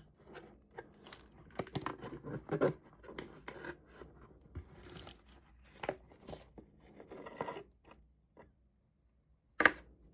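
Cardboard and paper packaging scraping, rustling and crinkling in close-up as a stuck paper insert is worked out of a keyboard box, with scattered small clicks. It goes quiet for a moment, then a single sharp tap comes near the end.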